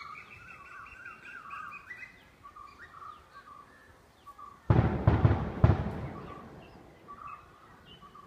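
Birds chirping, with a quick run of repeated chirps in the first two seconds and scattered calls after. A little under five seconds in, a loud burst of about four thumps fades out over about a second.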